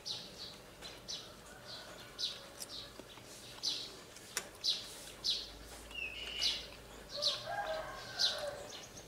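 Small birds chirping over and over, about two short high chirps a second, with a longer, lower call near the end.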